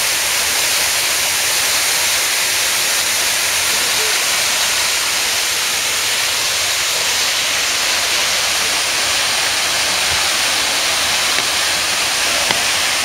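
Mountain waterfall: water pouring and splashing down over rocks in a steady, loud rush.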